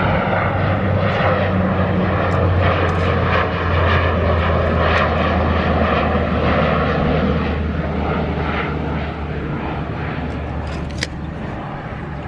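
A steady engine drone, fading over the last few seconds, with a few light metallic clicks and taps over it, the sharpest about eleven seconds in.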